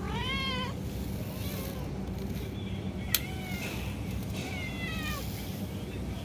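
Cats meowing several times: a clear arched meow at the start, fainter ones around the middle, and a falling meow about five seconds in. A single sharp click about three seconds in.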